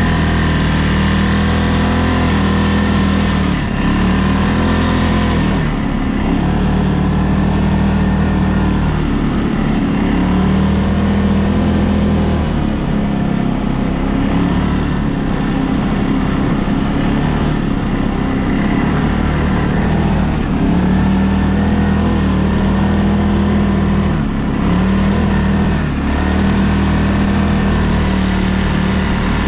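ATV engine running hard on an off-road ride. Its revs hold for stretches, then drop and climb again several times as the throttle is worked.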